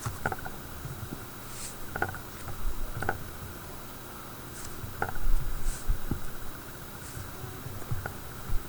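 Cloud slime being squished and worked by hand: scattered sticky clicks and crackles, with a few low squishes about two and a half and five seconds in, the loudest near five seconds.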